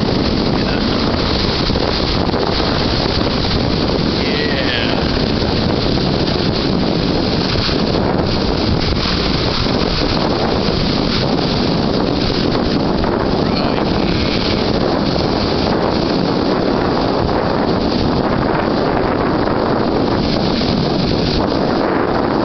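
Heavy wind buffeting the microphone, steady throughout, over the wash of large waves breaking on a lake beach.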